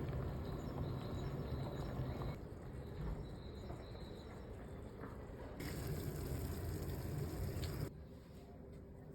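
Faint, short bird calls over a steady rushing background noise that changes level abruptly a few times.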